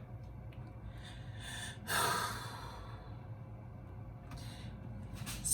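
A man sighs, one breathy exhale about two seconds in, with a softer breath about four and a half seconds in, over a steady low hum.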